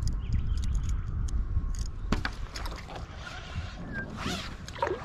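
Wind rumbling on the microphone from a kayak on open water, with a few sharp knocks against the kayak about two seconds in.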